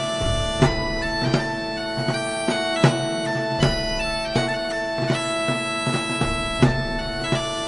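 Bagpipes playing a tune: a melody of shifting notes over a steady, unchanging drone, with frequent short sharp accents between notes.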